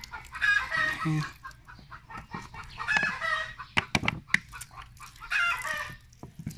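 Chickens clucking, with calls coming about every two seconds. A few sharp crinkles and clicks of a handled plastic water bottle come near the middle.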